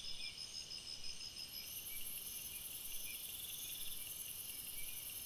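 Crickets chirping at night: high-pitched pulsing trills repeating over a steady, higher insect chorus.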